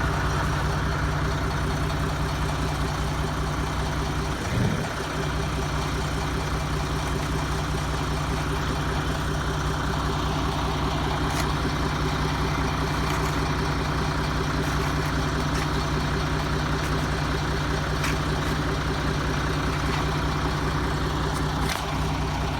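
Heavy truck's diesel engine running steadily at an even speed, with a short low bump about four and a half seconds in.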